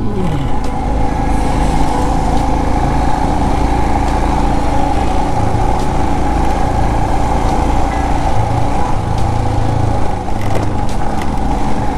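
Royal Enfield Himalayan 411 motorcycle running at a steady cruising speed, with an even drone of engine and road noise.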